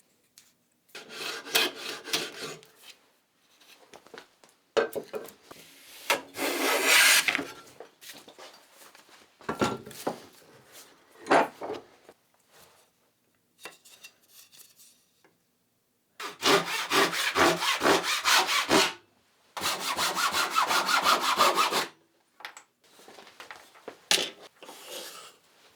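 Hand saw cutting wood in several bursts of back-and-forth strokes, the two longest near the end with quick, even strokes at about five a second.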